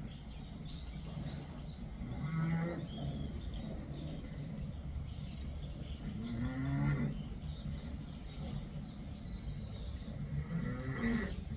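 Cat snoring: a low snore swells on each breath, three times at about four-second intervals, over a steady low rumble.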